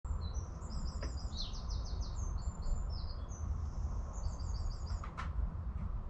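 Small garden songbirds singing and chirping in quick runs of high-pitched notes, over a steady low rumble.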